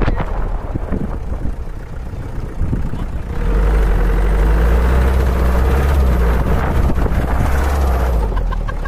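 Open Mahindra jeep's engine running as it drives on grass. About three and a half seconds in it gets louder and settles into a steady, deep engine note that holds until it eases slightly near the end.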